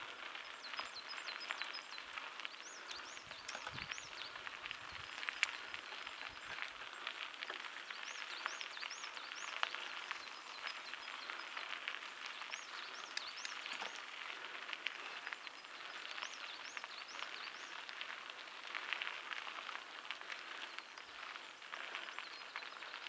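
Steady crunching and crackling on a forest trail, with a bird singing a short phrase of three or four high notes repeated every few seconds.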